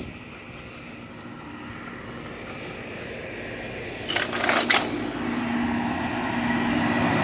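Outdoor air-conditioner condenser units running in cooling mode: a steady fan and compressor hum with a low steady tone, growing gradually louder. A few brief rustling clicks come about four seconds in.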